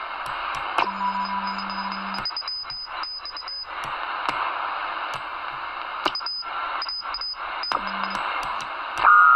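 Alan 8001 CB radio's receiver hissing with static as its frequency dial is turned across the 28 MHz band. Passing signals show up as a low hum twice, a brief whistle, short high beeps and clicks. A steady musical tone comes in near the end.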